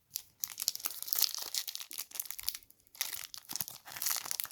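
Foil wrapper of a trading-card pack being torn open and crinkled in the hands, a run of irregular crackles with a brief lull partway through.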